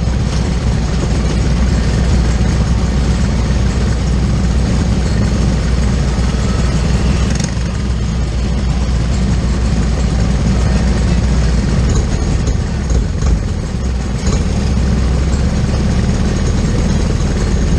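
Briggs & Stratton LO206 single-cylinder four-stroke kart engines idling, a steady low-pitched running with small dips about two thirds of the way through.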